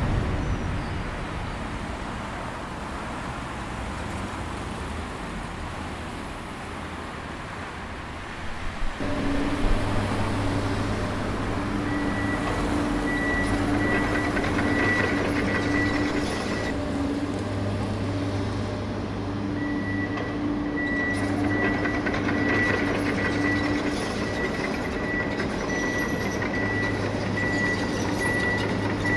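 Motorised machinery running: a steady rumble, then from about nine seconds in a steady hum with a high whine that drops out and comes back.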